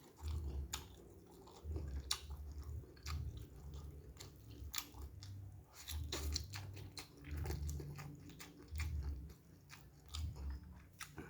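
Close-miked chewing and biting of chicken and noodles, with many small wet clicks and crunches over a low rhythmic jaw sound.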